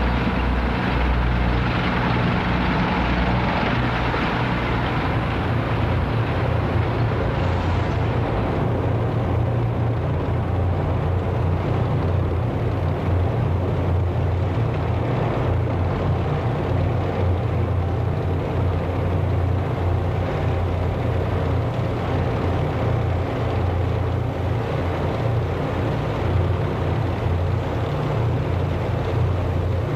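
Engines of a column of armoured military vehicles driving past, a dense steady low drone that goes on unbroken.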